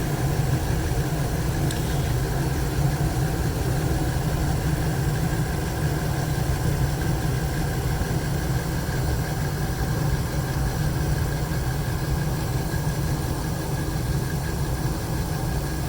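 Old gas furnace running with its doors off, just after kicking on: burners firing and blower motor running with a steady low rumble and a faint steady high tone.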